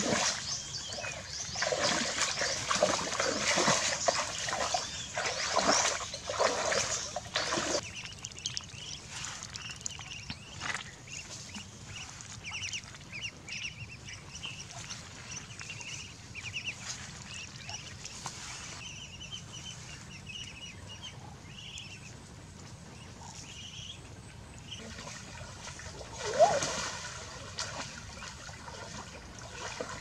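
Muddy water splashing and sloshing as someone wades and scoops with a woven basket for the first several seconds, then muscovy ducklings peeping in quick, short, repeated calls, with one louder, rising call a few seconds before the end.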